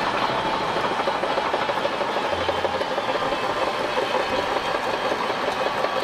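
Shantui crawler bulldozer working, its diesel engine running steadily under a dense clatter of steel tracks as it pushes sand.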